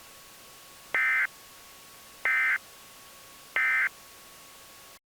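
Emergency Alert System end-of-message signal: three short bursts of screeching SAME data tones, evenly spaced about a second and a half apart, marking the end of the alert. A faint steady tone runs underneath until the audio cuts off near the end.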